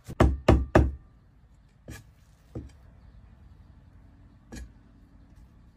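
Cleaver chopping pork on a thick round wooden chopping block: three quick hard chops in the first second, then a few light, spaced knocks of the blade as the meat is sliced.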